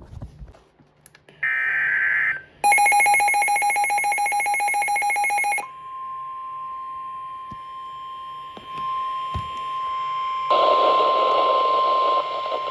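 Emergency Alert System weather-radio alert signals: a short burst of digital data buzz, then a loud pulsing electronic alert beep for about three seconds, then the steady single-pitch NOAA Weather Radio 1050 Hz warning alarm tone, with static hiss joining it near the end. The tones announce that a new severe weather warning is about to be broadcast.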